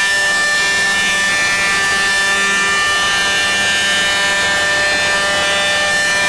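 Woodmaster 18-inch thickness planer running with a steady, high, many-toned whine over a hiss, as it planes rough sycamore planks.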